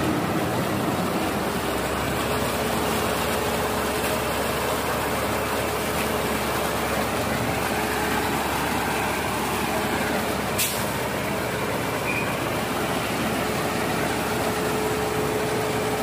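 Concrete mixer truck running steadily while it discharges wet concrete down its chute, with one sharp click about ten seconds in.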